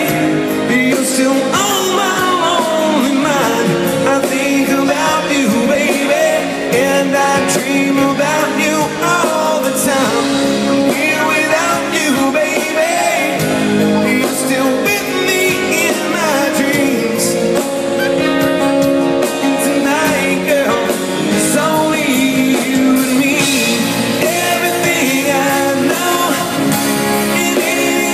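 Live rock band in concert: a male lead singer singing into a microphone over electric guitar and drums, loud and steady throughout.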